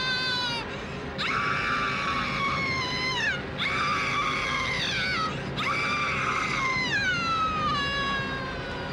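A woman screaming in terror: a high-pitched scream trails off just after the start, then three long screams follow with short breaks between them, the last the longest. Each one slides down in pitch as it dies away.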